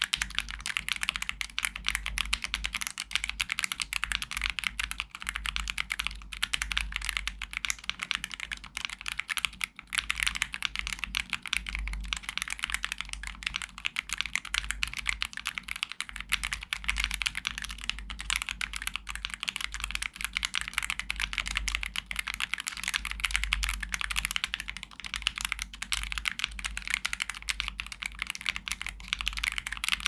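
Continuous fast typing on a YUNZII AL66 65% aluminium mechanical keyboard with a PC plate, YUNZII Milk switches and dye-sub PBT keycaps: a dense, even stream of keystroke clicks.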